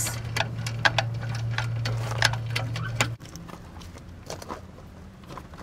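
Socket ratchet clicking in quick, irregular strokes as bolts are run into a Jandy variable speed pool pump's housing. A steady low hum underneath cuts off suddenly about three seconds in.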